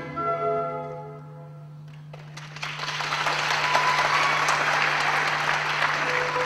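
Recorded classical music for a ballet ends with fading notes; after a short lull an audience starts applauding about two seconds in and keeps clapping steadily. A steady low hum runs underneath.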